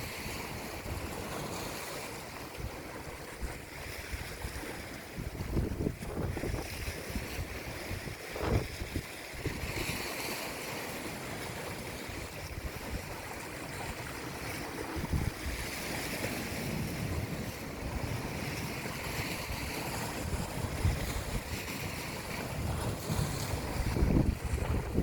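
Sea waves washing in and out on the shore, the hiss swelling every few seconds, with wind gusting on the microphone in low rumbles.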